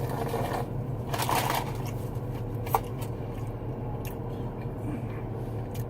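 Someone biting into and chewing a piece of buttered toast, with a crunchy rustle about a second in and a sharp click near the middle, over a steady low hum.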